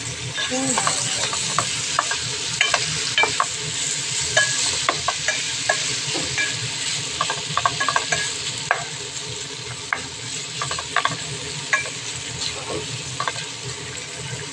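Chicken strips and sliced bell peppers sizzling in a frying pan as a wooden spoon stirs them, with frequent light clicks and knocks of the spoon against the pan.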